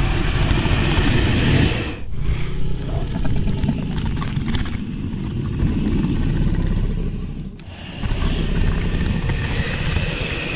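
Dragon sound effects: a loud, rumbling rushing noise in three stretches, with breaks about two seconds in and again near eight seconds.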